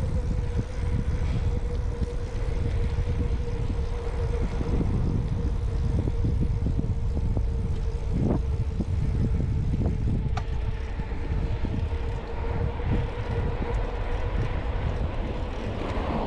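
Wind rushing over a bike-mounted action camera while riding, a steady low rumble, mixed with road traffic passing alongside. A faint steady hum runs under it, and there are a few light clicks and bumps.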